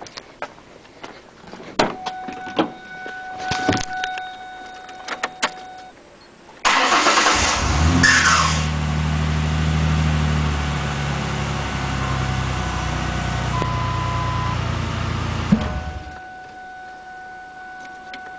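Ford Ranger engine cold-started for the first time of the day: it starts suddenly about six seconds in, runs for about nine seconds, then stops. This is the first start of the day, when the owner hears a strange noise that a second start right after does not make.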